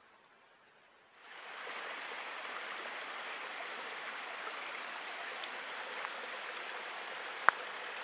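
A small stream running low, trickling and splashing over moss-covered limestone tufa terraces: a steady rushing that starts about a second in. One sharp click sounds near the end.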